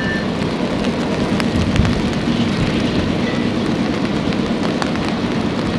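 Steady hiss of heavy rain, with scattered drops ticking sharply close by, over the low rumble of an approaching BC Rail GE C44-9WL diesel-electric locomotive.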